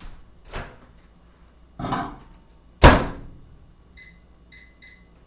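Microwave oven door shut with a sharp clunk about three seconds in, after a few softer knocks, then a few short keypad beeps as the time is set.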